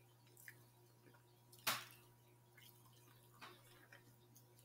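Near silence broken by a few faint, isolated clicks of eating, the loudest a little under two seconds in and a smaller one near three and a half seconds.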